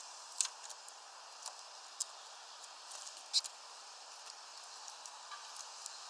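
Scattered sharp taps over a steady faint hiss, the loudest about half a second and three and a half seconds in: a tit pecking at peanuts in a mesh feeder bag.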